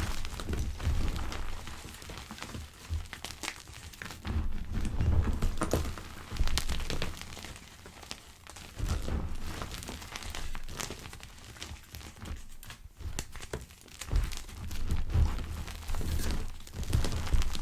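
Gym chalk pebbles being crushed: soft crunching and crackling, coming in repeated surges a second or two apart, each with a low dull thud under a dense patter of fine crackles.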